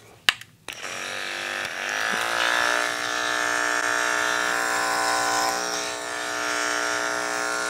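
Wahl KM10 electric dog clipper switched on less than a second in: its motor spins up with a rising hum over about a second and a half, then runs at a steady pitch while clipping the hair on top of a Goldendoodle's head through a 3/4-inch guard comb over a 10 blade.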